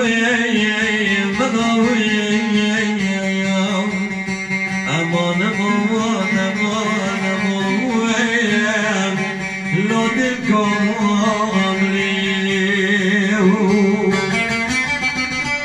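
A man singing long, wavering, sliding held notes into a microphone, accompanied by plucked long-necked saz lutes. The voice stops near the end, leaving the saz playing on.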